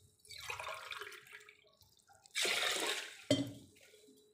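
Water poured from a steel tumbler into a pressure cooker holding horse gram, splashing in two pours with the second louder, followed at once by a short sharp knock.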